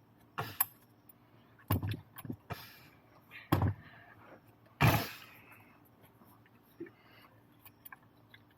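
Hands handling parts and wiring on a workbench: a string of scattered clicks, taps and rustles, the loudest knock about five seconds in, then only a few faint ticks.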